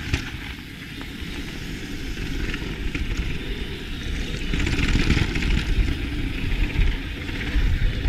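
Mountain bike descending fast on a hardpacked dirt trail: steady wind rumble on the camera's microphone under the hiss of knobby tyres rolling over dirt and loose grit, the tyre noise growing louder about halfway through.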